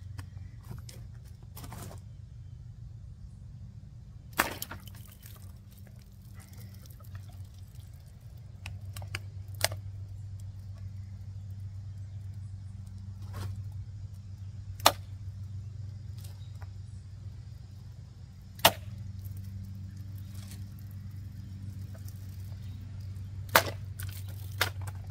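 Sharp clicks and knocks from out-the-front automatic knives being fired and slashed at plastic water bottles, about six of them spread several seconds apart, over a steady low hum.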